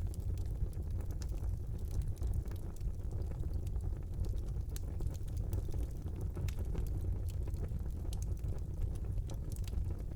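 Fire burning in a fireplace: a steady low rumble from the flames with frequent small, irregular crackles and pops.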